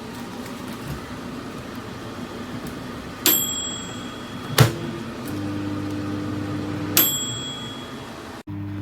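Compact manual-dial microwave oven: a steady running hum, then a bell ding about three seconds in that rings briefly before a click. A louder mains hum follows, and a second ding comes about seven seconds in before the sound cuts off abruptly.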